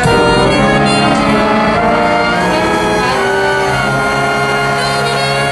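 Jazz big band with alto saxophone sounding a long held chord that comes in sharply at the start, the closing chord of the ballad.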